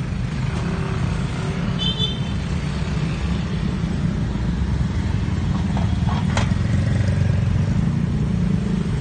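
Steady low rumble of a motor scooter engine running slowly, mixed with street traffic. A brief high squeak comes about two seconds in, and a sharp click a little after six seconds.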